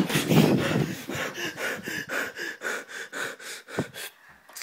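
A person breathing in quick, shaky gasps, about three or four breaths a second, the frightened breathing of someone hiding. A brief knock comes at the very start, and the breathing stops shortly before the end.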